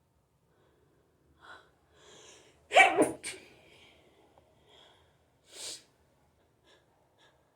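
A person sneezing once from hay fever, about three seconds in: a quick gasping intake, then one loud, sharp sneeze. A short breath follows a couple of seconds later.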